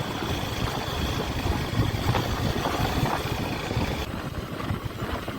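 Motorcycle engine running steadily while riding, heard as a continuous low rumble with road and wind noise.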